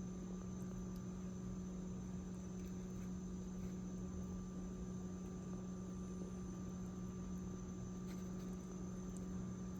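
A steady electrical hum with a faint hiss under it, unchanging throughout.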